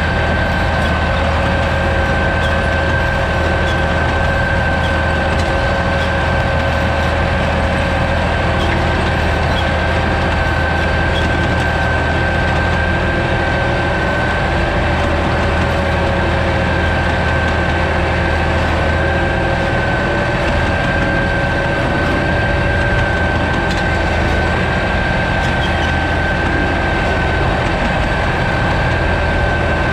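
Fendt 211 P vineyard tractor running steadily while working a Spedo Dual weeder with powered discs, a constant engine hum with a steady high whine over it.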